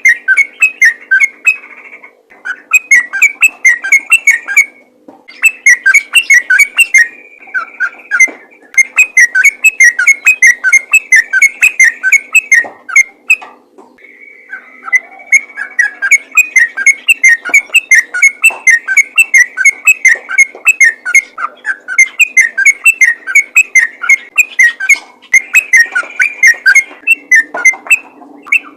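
Sooty-headed bulbul singing a rapid, chattering run of whistled notes over and over, in long strings broken by a few brief pauses.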